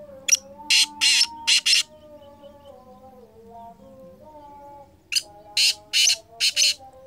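Black francolin calling twice, each call a quick run of five harsh notes lasting about a second and a half; the second call comes about five seconds in.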